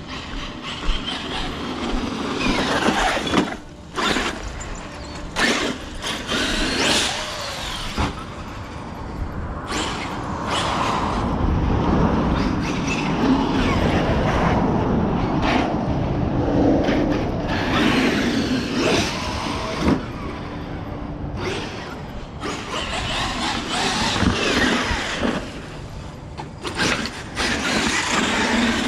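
Radio-controlled car driving: motor and tyres running over rough ground, with many knocks and clatters along the way.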